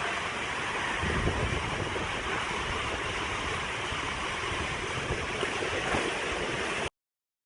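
Sanje waterfall rushing: a steady noise of falling water, with wind buffeting the microphone from about a second in. The sound cuts off suddenly near the end.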